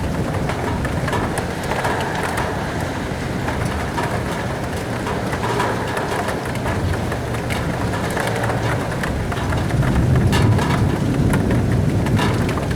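Rain and wind beating against a window: a steady hiss of rain with a deep rumbling gusting underneath that swells about ten seconds in, and a few sharper taps of drops hitting the glass.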